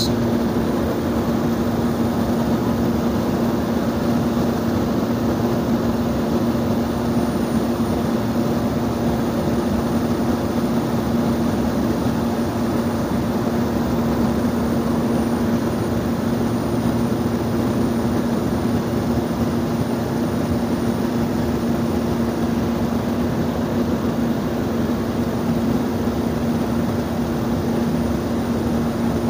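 Cabin noise of a small propeller airplane in cruise: a steady engine and propeller drone with two constant low hums over an even rush of airflow, unchanging throughout.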